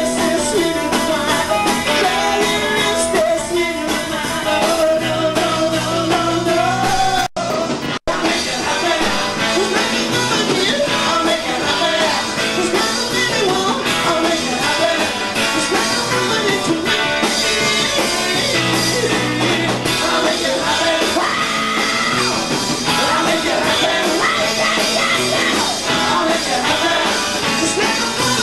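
Live rock band playing: a singer's lead vocal over electric guitar and drums. The sound drops out twice, very briefly, about seven and eight seconds in.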